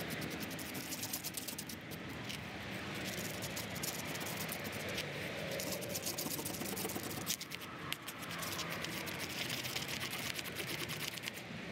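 Putty knife mixing Bondo body filler with hardener on a piece of cardboard: a steady run of quick, sticky scrapes and clicks as the blade folds and smears the filler.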